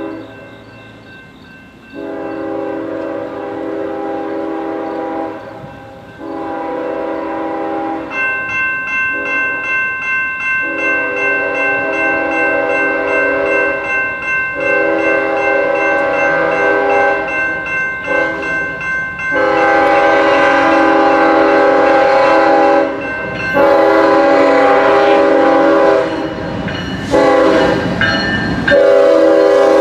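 Crossing bell ringing, then a diesel locomotive horn sounding a series of long blasts with short breaks, growing louder as the train nears the crossing; near the end the rumble of the passing locomotive joins in.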